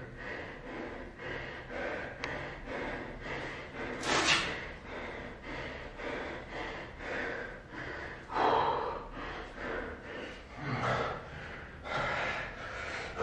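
A man breathing hard from the exertion of continuous burpees, with a run of short, forceful exhales and gasps. Stronger breaths come about four seconds in, about eight and a half seconds in, and near the end.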